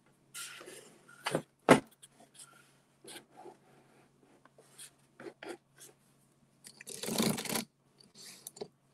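Handling noise from equipment being adjusted close to the microphone: scattered rubbing and small clicks, a sharp knock a little under two seconds in, and a louder half-second rustling scrape near the end.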